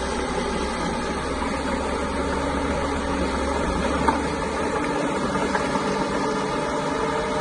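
Caterpillar bulldozer's diesel engine running steadily, with a short sharp click about four seconds in.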